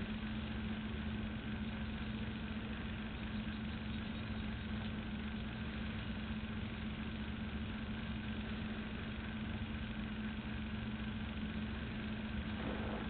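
Steady mechanical hum with one constant low tone and an even rumble underneath, unchanging throughout.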